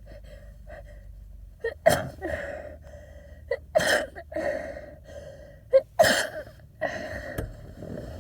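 A person sneezing hard three times, about two seconds apart, each sneeze preceded by a sharp gasping inhale. These are wet, congested sneezes from a head cold.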